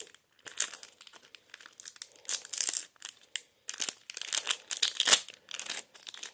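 Foil trading-card booster pack being torn open and crinkled in the hands: irregular bursts of sharp crackling.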